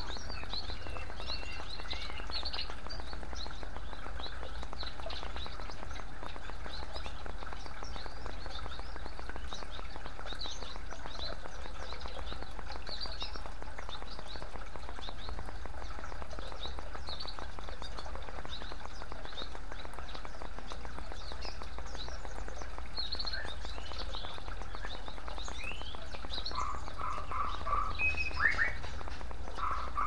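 Water trickling and splashing from bamboo fountain spouts into a clay bowl and a pool, a steady hiss, with many short bird chirps throughout. Louder repeated bird calls come in near the end.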